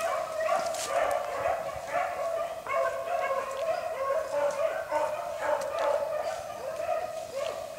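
Beagle pups baying on a freshly jumped rabbit: several hounds giving tongue at once, an overlapping, continuous chorus of yelping bays.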